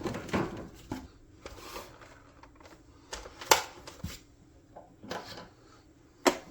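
Plastic Nerf blaster parts being handled: scattered light rustles and clicks, with a sharp click about three and a half seconds in and another near the end.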